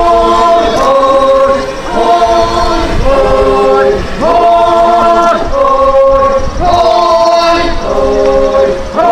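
Naga folk song sung in unison by a mixed group of men and women without instruments. It goes in short held chanted phrases, about one a second, each opening with an upward scoop in pitch.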